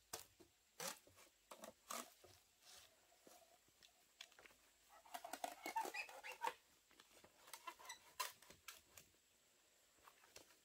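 Dry bamboo leaves and twigs on the ground rustling and crackling under hands, with scattered small snaps and a denser stretch of crackling about halfway through.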